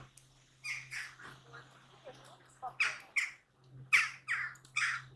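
Birds squawking: a run of short, harsh calls in quick clusters over a steady low hum.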